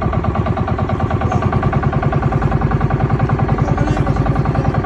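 Small engine of a motorized wooden river boat running steadily under way, a fast, even chugging.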